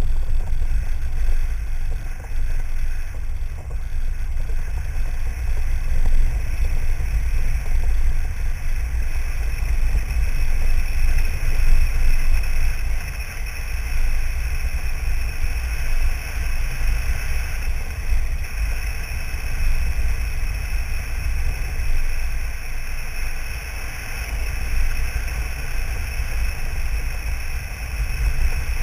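A vehicle driving steadily along a dirt road, heard from a camera mounted outside beside the side mirror. The sound is a continuous low rumble of road and engine noise with wind buffeting the microphone.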